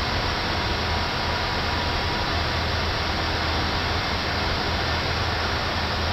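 Steady rushing noise on an Airbus A380 flight deck in the climb, the airflow and air-conditioning noise of the cockpit, with a low hum beneath.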